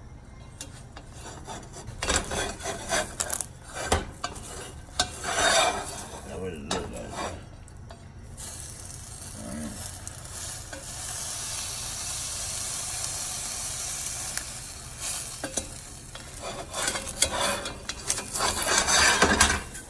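Ham and bread frying in a stainless steel skillet: a utensil scraping and knocking against the pan in irregular strokes, with a steady sizzle through the middle of the stretch.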